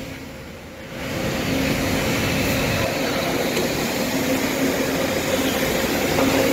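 City street traffic noise, a continuous rumble and hiss with a steady low hum running through it, quieter for about the first second.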